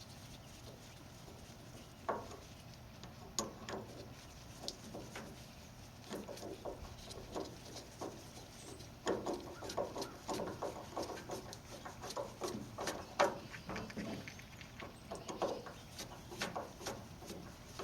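Faint, irregular clicks, taps and scrapes of hand tools on a throttle body as screws are worked and tightened, denser in the second half.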